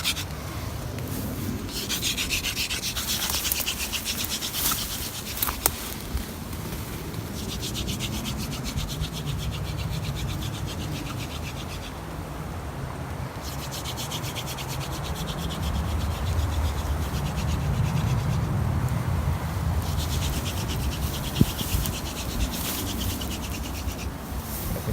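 Wooden hand-drill spindle spun back and forth between the palms, grinding into a wooden fireboard in spells broken by short pauses. The grinding is the sound of the friction fire nearing an ember, the change in noise fire-makers listen for.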